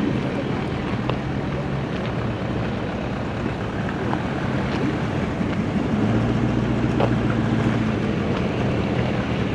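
Steady wind noise on the microphone over the rush of the swollen, flooded river, with a motor vehicle's engine humming underneath, loudest about six to eight seconds in.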